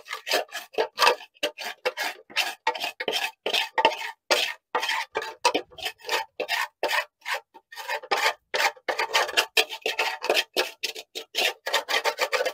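Many quick, rough scraping strokes as packed debris (acorn shells, dirt and fibrous fluff) is raked by hand out of the flywheel housing of a long-sitting 1954 Chevy pickup.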